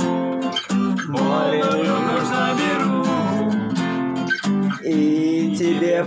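Acoustic guitar strummed in chords, with a man singing long held notes over it.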